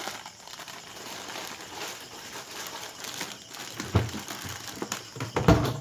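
Snack packaging rustling and crinkling as the packs are handled, with a couple of soft thumps near the end.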